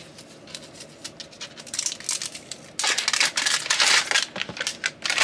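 Printed plastic wrapper on a Miniverse capsule ball crinkling and tearing as it is worked off by hand. The crackling is scattered at first, then gets loud and dense for about a second and a half past the middle.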